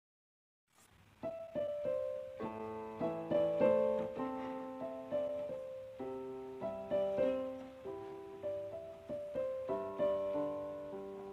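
Background piano music: a slow melody of single struck notes, each fading away, that begins after about a second of silence.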